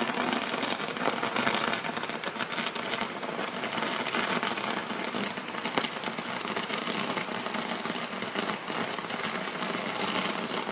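Burning fireworks crackling and hissing continuously, with one sharper pop about six seconds in.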